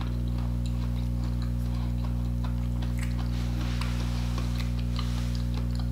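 A steady low hum with faint scattered clicks.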